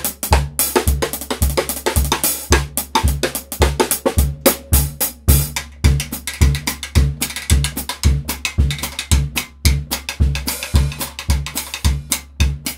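Drum kit played with wooden sticks: a dense pattern of snare drum strokes over a steady low bass drum beat about twice a second.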